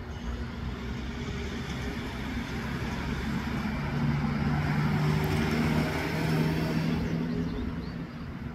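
A motor vehicle passing by: engine hum and road noise grow louder to a peak a little past the middle, then fade away.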